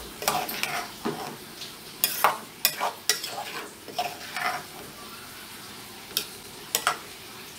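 Metal spoon stirring sliced sausage and vegetables in a pot, scraping and clicking against the pot, over the steady sizzle of the food frying. The spoon strokes thin out after about three seconds, leaving mostly the sizzle with a couple of clicks near the end.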